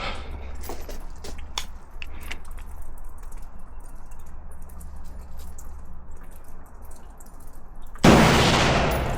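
One loud, close gunshot from an AR-style gun about 8 seconds in, its report dying away over about a second. Earlier, fainter sharp pops of gunfire come and go over a steady low rumble.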